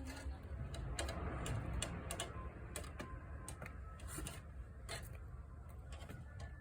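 A series of irregular light clicks and taps, roughly two a second, over a low rumble.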